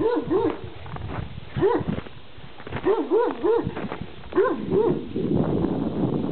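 A dog barking repeatedly, in short runs of two or three barks with pauses between.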